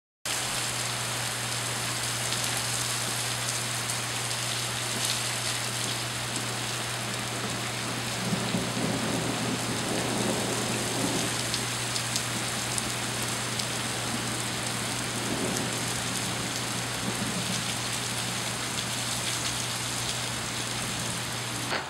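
Steady rain falling, an even hiss that runs on without a break, with a steady low hum underneath.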